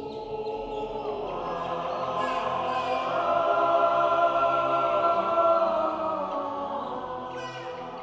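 Boys' choir with men's voices singing a Swiss folk-song arrangement unaccompanied, holding long chords that swell to their loudest about halfway through and then soften.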